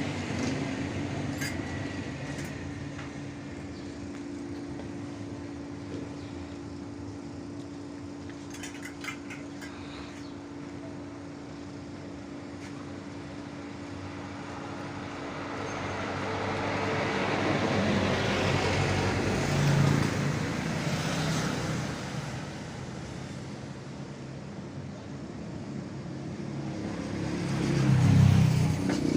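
Road traffic passing: vehicle noise swells and fades around the middle and again near the end, over a steady hum.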